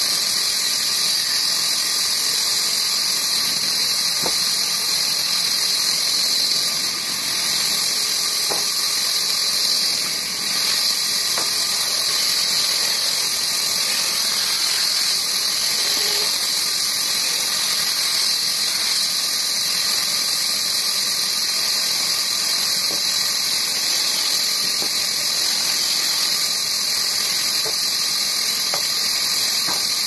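Large sawmill band saw running and cutting through a wooden block, a steady high hiss.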